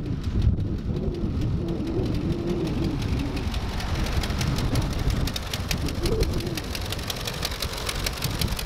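1941 Ford 9N tractor's four-cylinder flathead engine running as the tractor drives slowly past. A rapid crackle of clicks builds from about three seconds in as it comes close.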